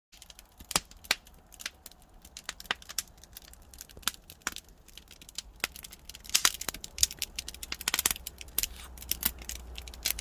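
Pine firewood burning in a wood-fired pottery kiln: a fire crackling with irregular sharp pops that come thickest in the second half, over a low steady rumble.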